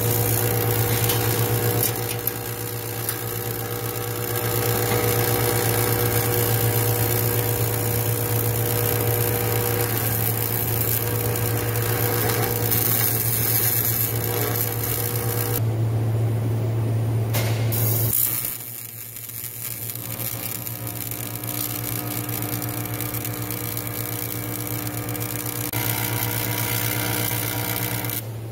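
Electric arc welding on an aluminium boat hull: a steady buzzing crackle of the arc. It drops noticeably quieter about two-thirds of the way through.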